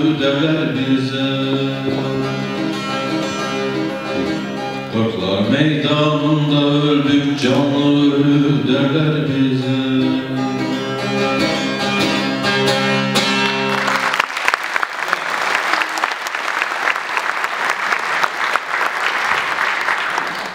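A man sings with a bağlama (Turkish long-necked saz), the voice gliding and holding long notes over the plucked strings. The song stops abruptly about two-thirds of the way in, and audience applause follows, marking the end of the song.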